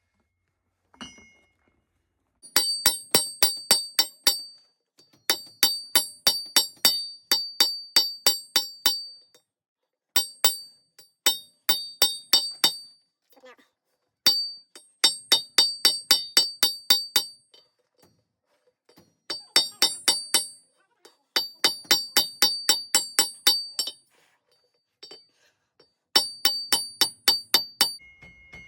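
Hammer blows on a hot steel hitching ball over an anvil, each blow ringing high and clear. They come in quick runs of about four to five strikes a second, with short pauses between runs.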